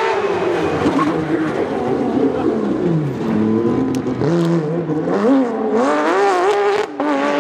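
Porsche 911 rally car's flat-six engine at racing revs: the pitch drops through downshifts as it brakes about three seconds in, then climbs in rising sweeps as it accelerates hard through the gears.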